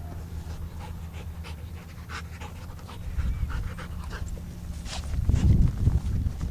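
Dog panting, with scattered light clicks and a louder low rumbling noise in the last second or so.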